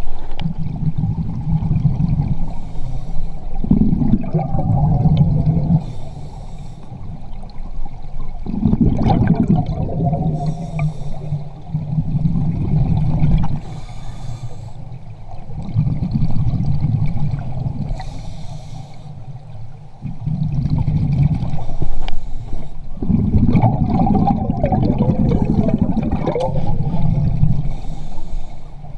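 Scuba diver breathing through a regulator, heard underwater through the camera housing: a short hiss on each inhale, then a long low bubbling of exhaled air, repeating about every four to five seconds.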